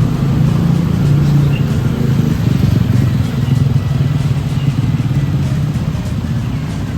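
Steady low drone of a motor vehicle's engine, with road traffic around it.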